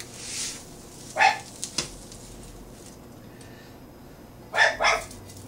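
A dog barking: one sharp bark about a second in, then two quick barks near the end.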